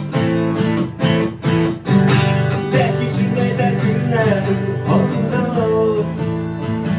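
Music: an acoustic guitar strumming chords in a steady rhythm, with a higher melody line that slides in pitch through the middle.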